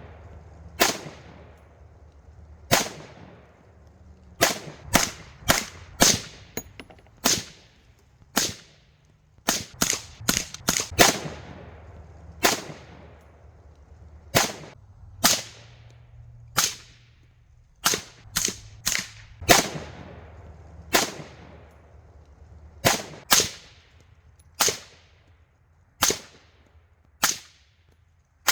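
Suppressed rifle shots, about thirty single cracks edited back to back at irregular spacing, each with a short echoing tail.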